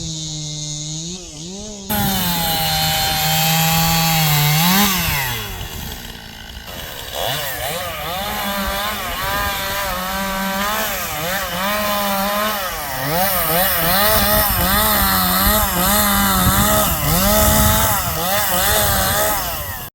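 Chainsaw cutting through dead wood. Its engine pitch keeps sagging and recovering as the chain loads up in the cut, and it bites in harder about two seconds in.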